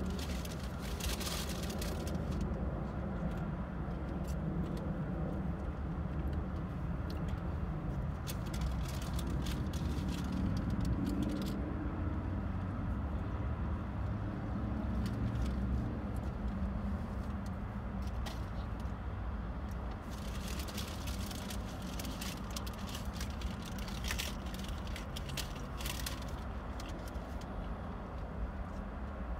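Road traffic and idling car engines heard from inside a car: a steady low rumble, with short bursts of faint crackling now and then.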